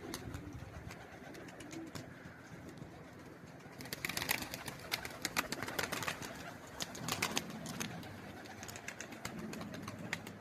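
Fighting (tumbler) pigeons clapping their wings in flight as they somersault: runs of sharp claps, in bursts about four seconds in, again around seven seconds, and near the end.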